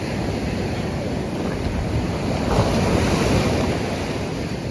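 Ocean surf washing onto a beach, with wind noise on the microphone; a wave swells loudest about two and a half seconds in.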